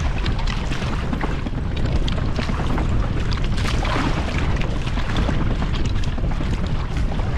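Wind buffeting the microphone in a steady low rumble, with water splashing and lapping against the hulls of a Hobie Cat catamaran under sail.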